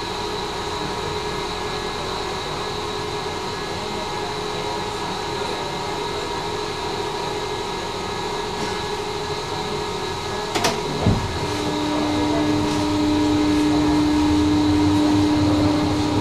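Inside a tram: a steady electrical hum and ventilation noise. About ten and a half seconds in there is a sharp click and a thump, then a steady low tone comes in and the low rumble grows, as of the tram pulling away.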